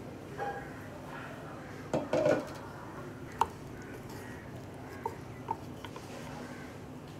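Aluminium pressure cooker lid lifted off and set down with a clatter about two seconds in, then a wooden spatula stirring boiled mutton pieces in the cooker, with a few sharp taps against the pot.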